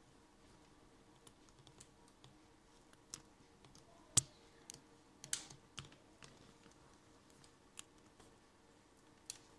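Scattered light clicks and taps, with one sharper knock about four seconds in and a brief scrape just after, over a quiet room: handling noise from a hand-held phone camera being turned around.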